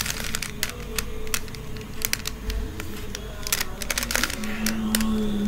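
A 3x3 Rubik's cube being turned by hand: quick, irregular clicks of its plastic layers snapping through each turn.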